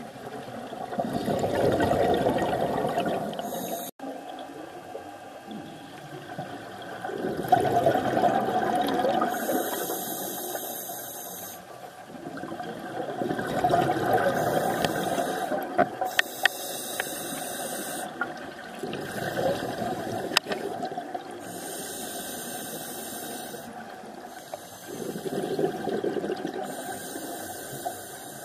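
Scuba breathing through a regulator underwater: loud bubbling exhalations about every six seconds, each followed by a high hissing inhalation, with a few sharp clicks in between.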